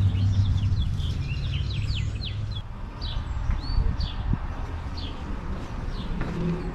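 Birds chirping: many short, quick falling chirps, over a low rumble that fades after about the first second.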